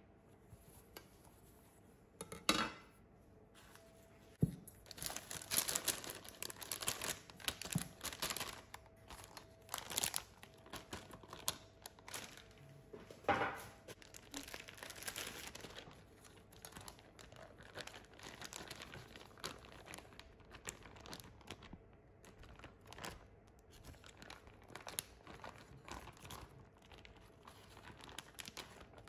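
Plastic bag crinkling and rustling in irregular spells while shredded food is shaken out of it into a stainless-steel bowl. A few sharp knocks are heard along the way, the loudest a little before the halfway point.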